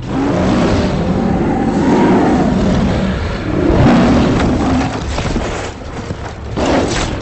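Film sound effects of a giant lion roaring and growling over a deep rumble, with a second swell about four seconds in.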